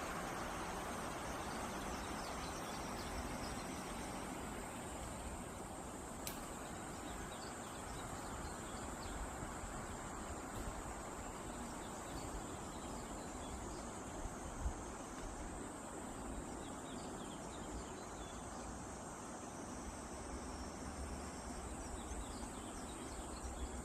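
Insects chirping in many short, high repeated calls over a steady low background hum of outdoor noise, with a single faint click about six seconds in.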